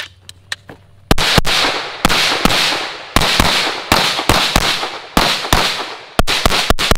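Strings of rapid pistol shots from a SIG P320 in a Flux Raider chassis: after a few faint clicks, quick bursts of two to six shots with short pauses between them, each shot ringing out briefly.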